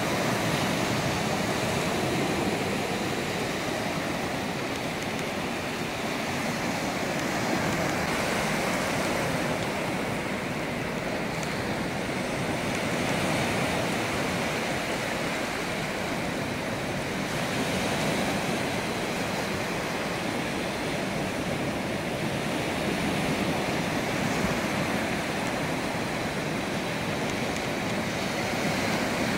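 Small surf waves breaking and washing up over a sandy beach: a steady rush of water that swells gently every few seconds as each wave comes in.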